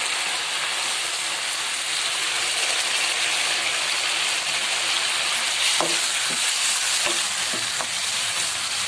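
Fish heads sizzling steadily in a frying pan of hot oil and yogurt-spice masala that has been fried until the oil separates, with a few light knocks from about six seconds in as they are handled in the pan.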